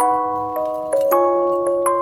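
Background music: a melody of struck, ringing bell-like notes on mallet percussion such as a glockenspiel, several notes a second.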